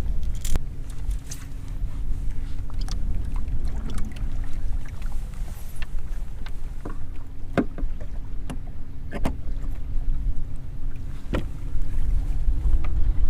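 Fishing boat on the water: a low steady rumble of wind and water with a steady hum that drops out briefly about five seconds in, and several sharp knocks scattered through.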